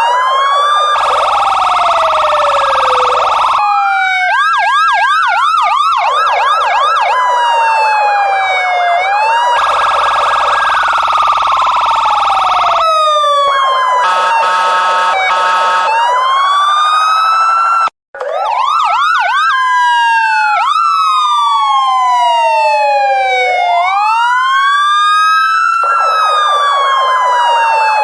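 Loud police siren cycling through its patterns: slow rising and falling wails, a fast repeated yelp, and steady blaring tones, with a split-second break about 18 seconds in.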